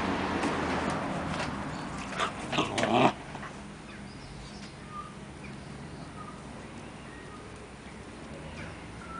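A dog giving a quick run of sharp yaps a little over two seconds in, following a stretch of rushing noise, and then a few faint short high squeaks.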